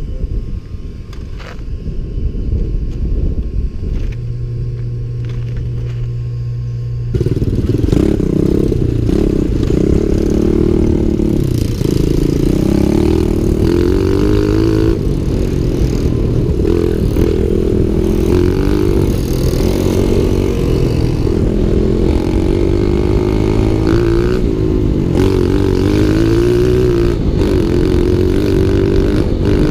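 Pit bike engine running while being ridden over dirt and gravel, the revs rising and falling. The first seconds are muffled, with a steady low hum; about seven seconds in the engine note turns suddenly louder.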